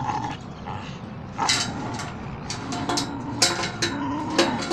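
Metal chain rattling and clinking in sharp, irregular clinks as a pit bull hangs by its jaws from the rope below it and swings.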